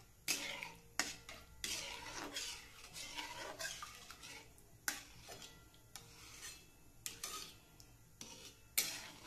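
Spatula scraping against a metal pan while continuously stirring a thickening white sauce to keep it free of lumps: irregular strokes, roughly one a second, each with a sharp start.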